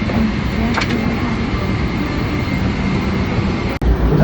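Steady drone of vehicle interior noise, cut off by a sharp click and a brief dropout near the end.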